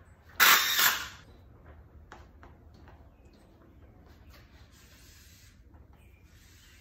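A short loud rustling hiss about half a second in, followed by faint clicks and scraping as a roof tube applicator is pulled up out of a pail, drawing mastic into the tube.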